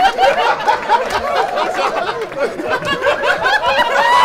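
A studio audience and the people on stage laughing together, many voices overlapping in one long burst of laughter.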